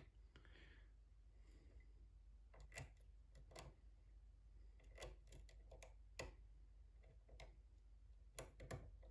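Faint, irregular clicks of a lock pick working the pins of a pin-tumbler lock under tension, about a dozen small ticks spread out with pauses between them.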